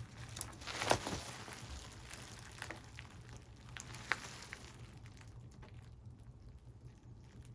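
Scattered light clicks and taps of hands working the thin metal housing of an LCD monitor's backlight, bending it so that a slightly too long LED strip fits. The sharpest click comes about a second in, another about four seconds in.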